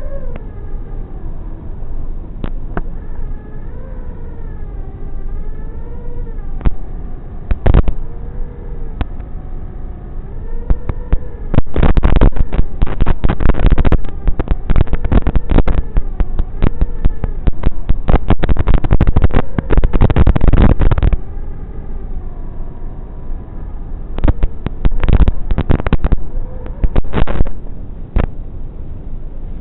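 FPV drone's electric motors whining, the pitch rising and falling as the throttle changes. Long stretches of loud, dense crackling cut through it from about twelve to twenty-one seconds in and again from about twenty-four to twenty-seven seconds in.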